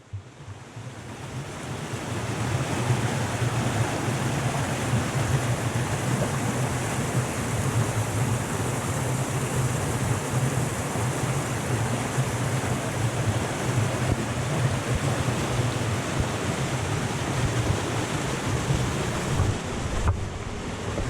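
Waterfall rushing: a loud, steady roar of falling water that fades in over the first couple of seconds.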